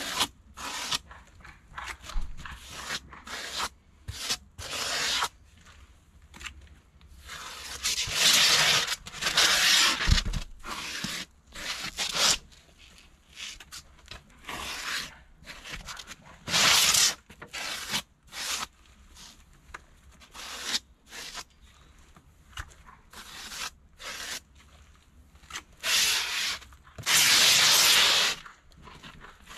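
Expanded polystyrene (EPS) insulation board being cut and handled on an EPS guillotine: a string of short scratchy rasps of the foam against the blade and table, with a few longer scraping strokes that last a second or two.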